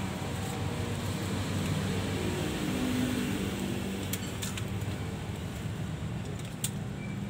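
A steady low mechanical hum, with a few faint sharp clicks about four seconds in and again near the end.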